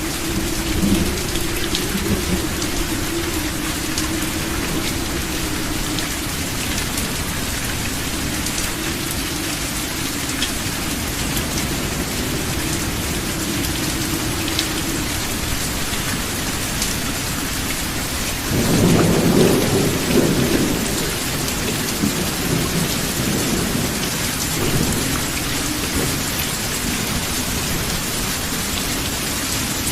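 Steady rain falling with continuous low rumbling thunder; a louder roll of thunder comes about two-thirds of the way through.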